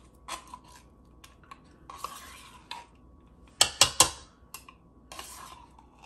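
A spoon scraping thick tomato paste out of a small can and into a pot, in short scraping strokes, with three or four sharp knocks a little past the middle as the utensil is tapped against the can or the rim.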